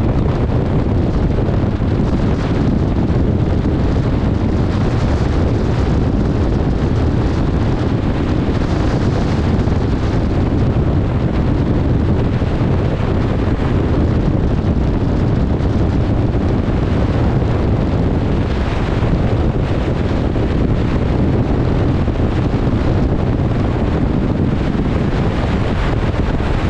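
Steady wind buffeting the microphone on a ship under way at open sea, a constant low rumble with the rush of wind-driven waves beneath it.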